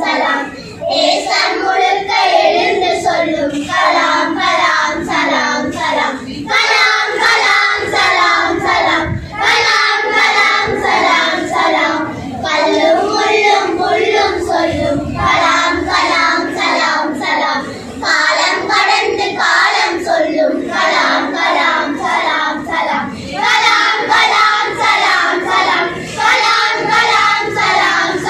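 A group of about a dozen schoolchildren singing a song together in chorus, in phrases with short breaks between them.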